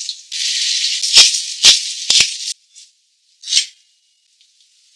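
Sauce sizzling in a stainless steel wok, with a metal spoon knocking against the pan four times as it stirs; the sizzle stops suddenly about halfway through, and a single short scrape follows a second later.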